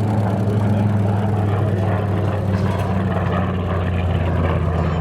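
A steady, loud aircraft engine drone: a low hum whose pitch drifts slowly up and down.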